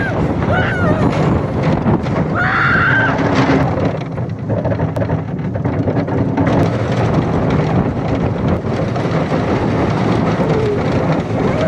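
Roller coaster ride on a wooden coaster: the train running loudly along the track with constant rushing noise, and a woman giving short screams, the longest about two and a half seconds in and another near the end.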